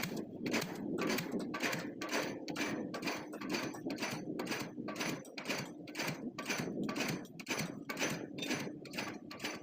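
Pile driver hammer pounding a pile in a steady, even rhythm of sharp knocks, about three a second, over a steady engine drone.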